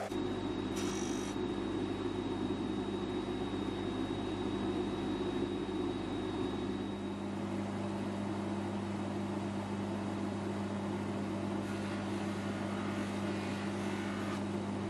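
Bench polishing motor running steadily with a buffing wheel spinning, a constant hum under a rushing, whirring noise as watch parts are held to the wheel. A thin high whine sounds over it for roughly the first six seconds.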